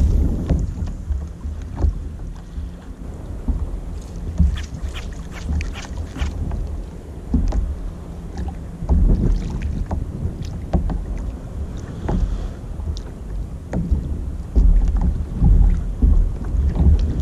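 Wind buffeting the microphone on a plastic sit-on-top kayak at sea, as an uneven low rumble, with small waves lapping and slapping against the hull and scattered light clicks and knocks, most of them about four to six seconds in.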